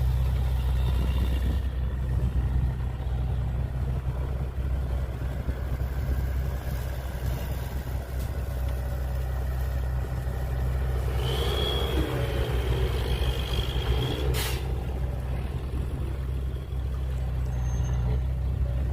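Heavy diesel earthmoving machinery engine running steadily at low revs. A high, steady whine joins it for about three seconds past the middle, then ends with a short, sharp hiss.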